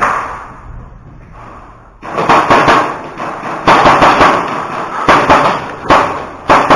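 Airsoft guns firing: after a quieter start, a rapid, irregular run of sharp shots and cracks begins about two seconds in and keeps going.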